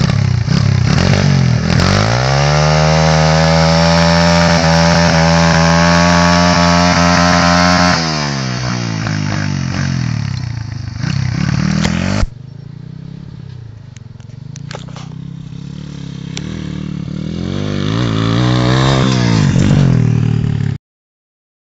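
Pit bike's single-cylinder engine revving up and held at high revs for several seconds, then falling back. The level drops sharply about twelve seconds in, and the engine revs up again near the end before the sound cuts off.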